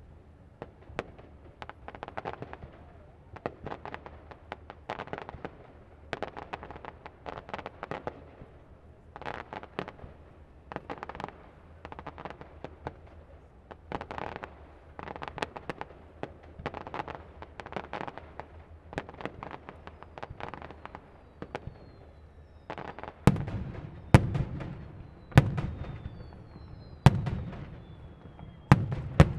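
Fireworks display: clusters of crackling pops come one after another, about every second or so. Near the end, louder sharp bangs with a low rumble break in, with faint falling whistles among them.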